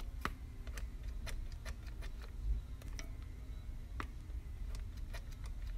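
Light clicks and ticks at uneven spacing, several a second, over a low rumble, from the hand-held remote control being worked as the RC truck is steered.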